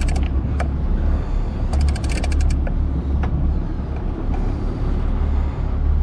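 Boat engine running steadily in a low drone, with a burst of rapid ratcheting clicks about two seconds in and a few single clicks from the big-game fishing reel as the angler cranks line in on a heavy bluefin tuna.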